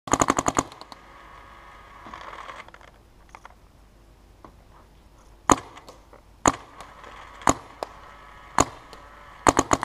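Dye electronic paintball marker firing: a fast string of about ten shots at the start, then single shots roughly a second apart, and a quick pair near the end.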